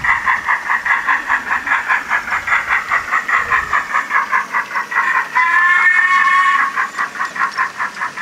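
OO gauge model steam locomotive's steam sound chuffing at an even beat of about four to five puffs a second, with a whistle held for about a second and a half near the middle.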